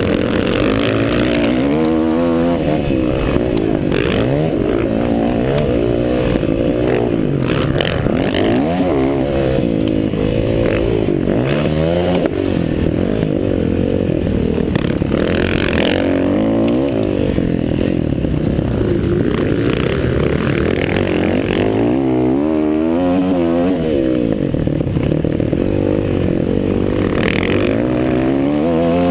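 Several motocross bikes' engines revving hard and shifting as they race around the track, their pitches overlapping and rising and falling as the bikes accelerate, back off and pass.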